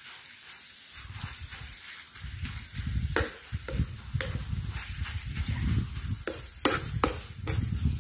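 A metal spoon stirring and scraping thick chili paste in a small electric frying pan, with a faint sizzle of frying. Several sharp clinks of the spoon against the pan come from about three seconds in.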